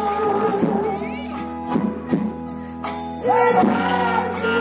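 Women singing into microphones through a PA over backing music. The music drops back in the middle, then a loud held sung note comes in about three seconds in.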